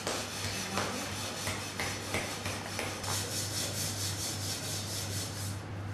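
A wooden tool scraping a clay bowl in short strokes, then a denser rubbing of clay, over a steady low hum.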